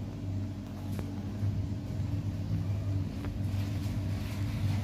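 Steady low machine hum with a couple of faint clicks.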